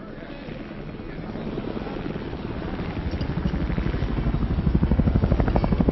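Helicopter approaching, its fast rotor beat growing steadily louder and loudest near the end.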